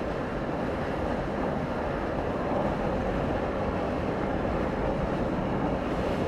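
Steady road and engine noise heard from inside a moving car.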